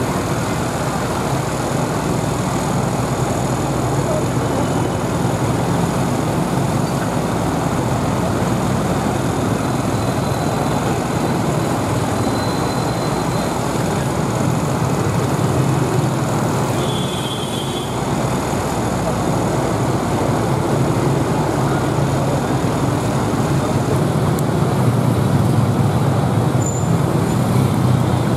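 Steady roadside traffic noise: motorbike and car engines running and passing close by.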